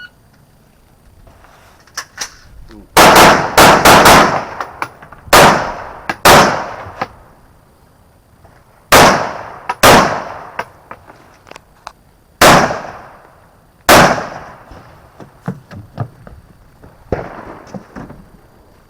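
Rifle shots from an action rifle stage. A quick string of several shots comes about three seconds in, then single shots a second or more apart, each with a short echo. Fainter shots sound further off near the start and near the end.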